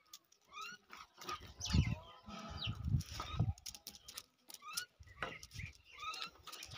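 Short rising chirping animal calls, repeated in small clusters, over an intermittent low rumble.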